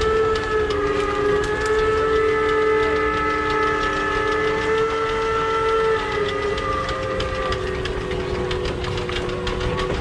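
Steam traction engine's multi-chime steam whistle, a train-type whistle, blowing one long chord of several notes at once. Its upper notes fade out after about eight seconds.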